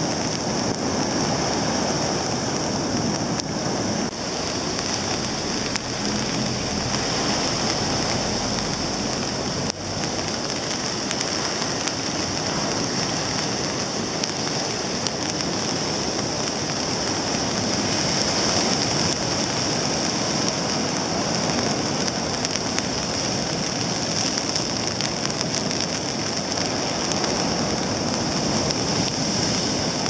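Steady rain hissing over heavy storm surf breaking on a sandy beach, a continuous wash of noise that swells and eases slowly.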